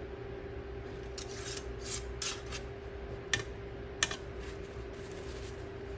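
Metal screw bands being twisted onto the threads of glass mason jars, giving several short rasping scrapes, then two sharp clicks, over a steady low hum. The bands go on loosely rather than fully tight, closing the filled jars for water-bath canning.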